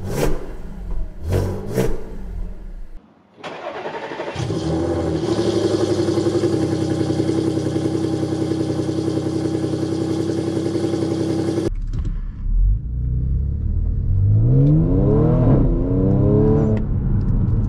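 Audi S5's supercharged 3.0-litre V6 TFSI engine, Stage 2 tuned with a swapped supercharger pulley and high-flow catalytic converters, running just after start-up. It gives a few short blips, cuts out briefly about three seconds in, then idles steadily for several seconds. Near the end it is revved, rising in pitch and dropping back.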